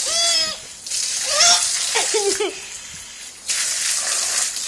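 Water jet from a garden hose hissing and splattering on a tiled floor. It stops briefly and comes back twice, and a baby gives high squealing vocalizations at the start and again in the middle.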